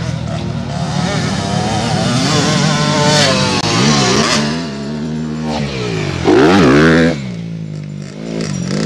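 Motocross dirt bike engines revving hard, the pitch climbing and dropping again and again as the bikes accelerate and shift. The loudest burst comes about six seconds in and lasts under a second.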